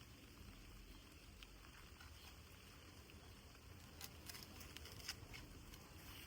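Faint light rain pattering, with scattered drops ticking; a few slightly louder drops come between about four and five seconds in.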